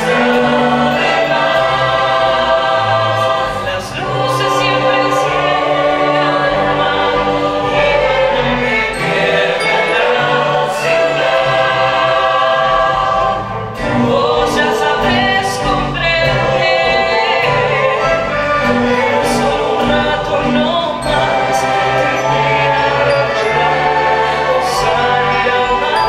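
A youth string orchestra and choir performing live, the choir singing over sustained strings in an orchestral arrangement of Argentine rock nacional.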